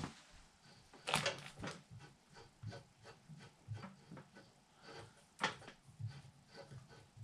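A mini bike's chain and newly fitted chain tensioner worked by hand to check the tension: a run of light clicks and rattles, with sharper knocks about a second in and again about five and a half seconds in.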